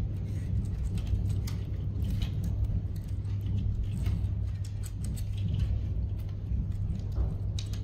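Thin wires on a battery pack being handled and pressed into a plastic wire channel: scattered light clicks and rustles at irregular moments over a steady low hum.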